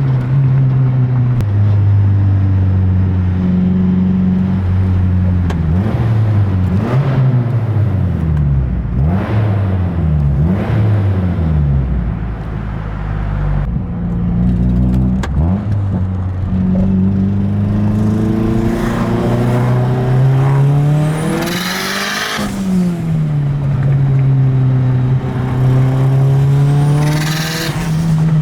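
Mazdaspeed 6's turbocharged 2.3 L four-cylinder engine pulling hard under full throttle through the gears, its pitch climbing in each gear and dropping at each shift, with short hissing bursts twice near the end.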